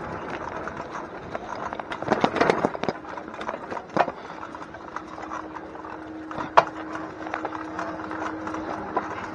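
Bicycle rattling and clicking as it rolls over a rough lane of broken bricks and dirt, with a dense clatter about two seconds in and single sharp knocks about four and six and a half seconds in. A faint steady hum joins from about five seconds in.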